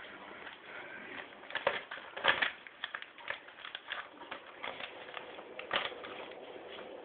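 West Highland white terrier puppies play-fighting: scrabbling paws and claws with rapid sharp clicks and knocks, the loudest about two seconds in and again near six seconds, mixed with small puppy grumbles.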